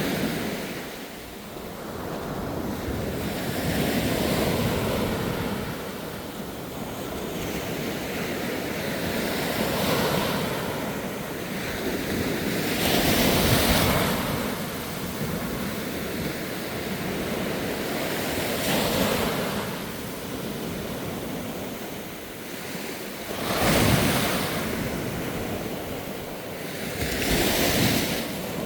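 Surf breaking on a sandy beach, the waves swelling and washing in and out every few seconds, with a few larger breakers standing out.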